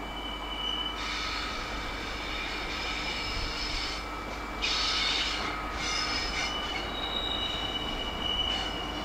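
Freight train wagons' wheels squealing as they roll slowly over curved track. Several high-pitched squeals overlap and change pitch, with a brief harsher screech about halfway through.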